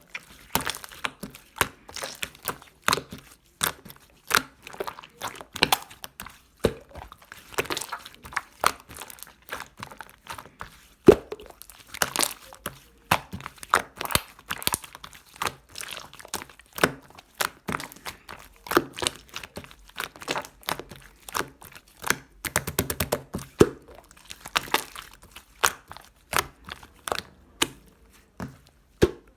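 Slime being squished and poked by hand, giving sharp clicks and pops at an irregular pace, with a quick run of rapid clicks near the end.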